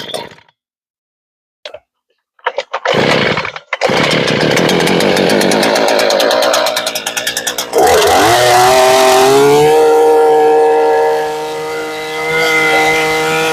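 Gas-powered earth auger's small engine running. After a brief silent gap near the start, it runs steadily; about eight seconds in it gets louder, its pitch glides down slightly, then holds a steady high drone.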